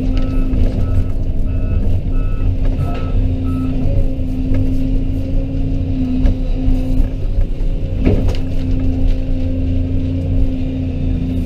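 Excavator's diesel engine running steadily under work, with a short beeping alarm sounding repeatedly in the first few seconds. About eight seconds in there is one sharp crack.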